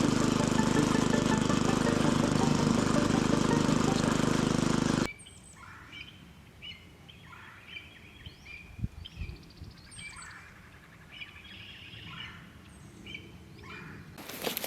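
A gasoline garden tiller's engine runs steadily and loudly, then cuts off suddenly about five seconds in. Songbirds then sing in short repeated phrases, with rustling steps starting near the end.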